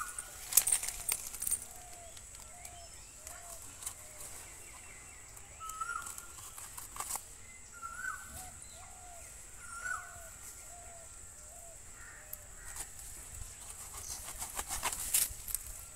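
Birds calling in runs of short, repeated notes, with a few sharp snaps and rustles as taro stalks are cut with a knife.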